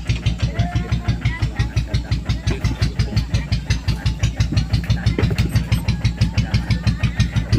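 Motorcycle engine of a motor lori rail trolley running with an even, pulsing beat of about five pulses a second.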